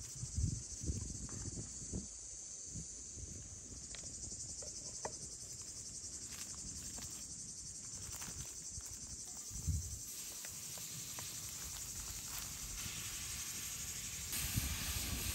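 Steady high-pitched insect chorus over a wood fire with scattered crackles. Footsteps thud on dry leaf litter in the first two seconds, and about 14 seconds in ground beef drops into the hot pan and starts to sizzle.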